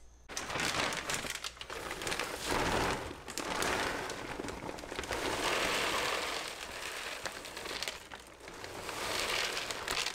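Plastic bag of Feline Pine pine-pellet cat litter crinkling as it is tipped, with the pellets pouring out into a plastic litter box in a long continuous rush that eases briefly about eight seconds in.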